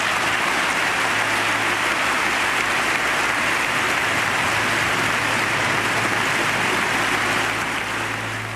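A large audience applauding steadily in a standing ovation. It fades away near the end.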